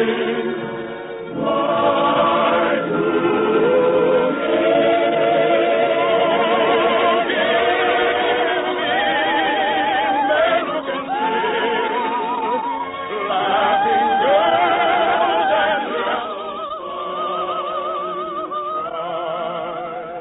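Operetta singing with orchestra: sustained notes sung with a wide vibrato, the phrases rising and falling. The sound is thin, with no high treble, as in an old 1952 radio broadcast recording.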